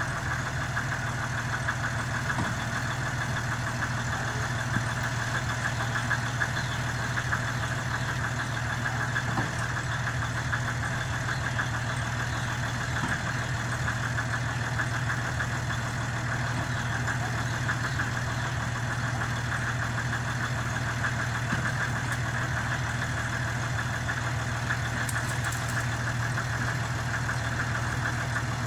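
Old truck's engine running steadily at low revs while it slowly pulls a wooden house on a trailer.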